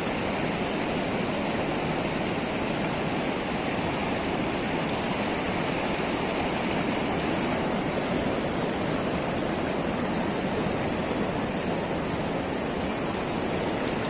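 Steady rush of river water pouring over a weir crest and churning into white water below.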